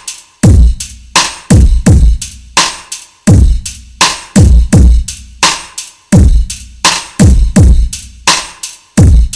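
Heavily bass-boosted instrumental hip-hop beat with no vocals: deep kick drums that slide down in pitch, and sharp snare hits in a steady groove.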